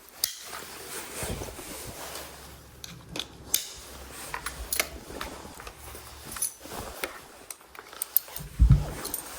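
Small metal clinks and jingling mixed with rustling handling noise, as a dog's harness and leash hardware are handled. A louder low thump comes near the end.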